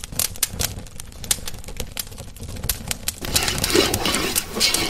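Wood fire crackling and popping under a cooking pot, with fast, irregular sharp cracks. About three seconds in it gives way to a louder hiss with scrapes, as a ladle stirs the pot of simmering curry.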